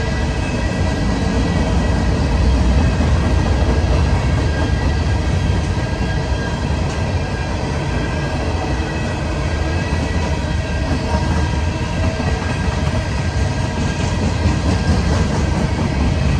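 Norfolk Southern coal hopper cars rolling past at steady speed: a continuous rumble of steel wheels on the rails, with a faint, steady, high-pitched squeal above it.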